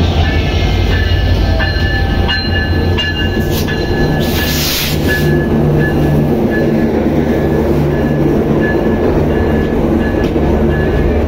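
Bangladesh Railway diesel locomotive and its intercity passenger coaches passing close by: a heavy engine rumble at first, then the steady rolling of the coaches' wheels on the rails with a thin, intermittent squeal. A brief loud hiss comes about four seconds in.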